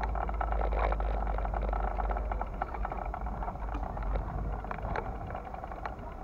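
Outdoor city-square ambience on a walking camera's microphone: a constant low rumble with a hiss and many small clicks and rustles throughout.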